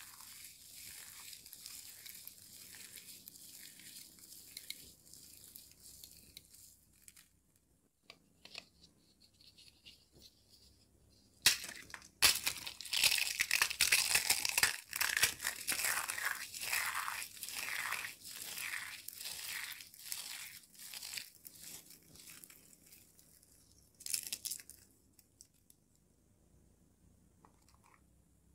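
Hands rustling and crinkling through a pile of foil confetti and glitter in a soft rhythm. About halfway in, loud dense crunching starts as thin, brittle dry-soap shells are crushed and crumbled in the fingers. It thins to scattered crackles and one sharp click near the end.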